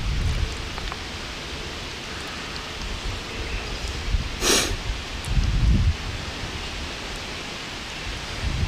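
Wind buffeting the microphone in low gusts over a steady outdoor hiss, with one short, sharp hiss about halfway through.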